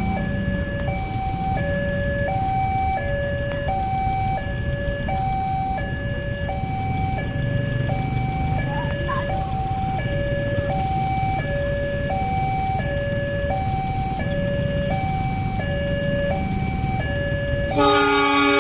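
Two-tone electronic warning signal alternating steadily between a high and a low tone, about one high-low pair every second and a bit, over a low rumble. Near the end a diesel locomotive's horn starts blowing, louder, as a steady chord.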